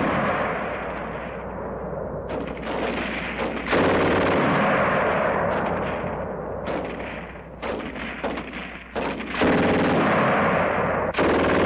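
Machine-gun fire in long, sustained bursts, growing louder again about four seconds in and once more about nine seconds in.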